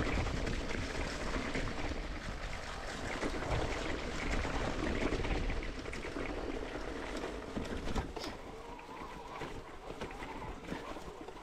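Mountain bike riding a dirt singletrack: rolling tyre and trail noise with many small rattling clicks, over a low wind rumble on the microphone, easing off about eight seconds in.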